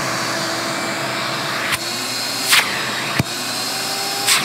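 Ridgid combo shop vacuum and leaf blower running steadily with a whine, drawing its power through the car's vehicle-to-load adapter without tripping it. A few brief sharp rushes or clicks cut through, the biggest about two and a half seconds in and near the end.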